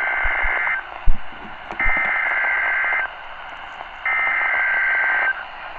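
NOAA Weather Radio sending its EAS/SAME header: repeated harsh digital data bursts about a second long and about a second apart, through the receiver's hiss. This coded header opens an alert message. A sharp thump comes about a second in.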